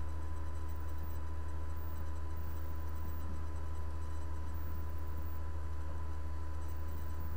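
Steady low electrical hum with a faint even hiss, unchanging throughout: the noise floor of a recording microphone, with no speech or other events.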